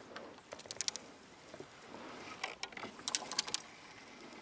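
Scattered light clicks and ticks of fishing gear being handled in a kayak, coming in two clusters: a few about a second in and a quicker run from about two and a half to three and a half seconds in.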